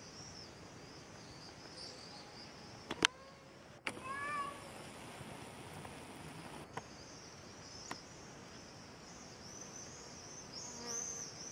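Faint, steady high-pitched chirping of insects in the dry grass. There is a sharp click about three seconds in and a short call about four seconds in.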